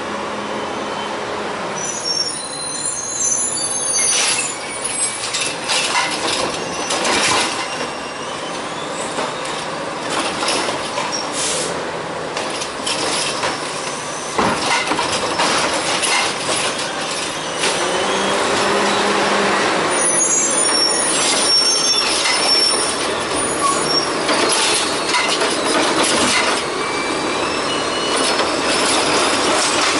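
Heil Rapid Rail automated side-loader garbage truck on a CCC LET2 chassis: the engine runs as the truck pulls up and stops, with air-brake hisses and high brake squeals. Near the end the hydraulic side arm runs, clanking and squeaking as it grabs and lifts a cart.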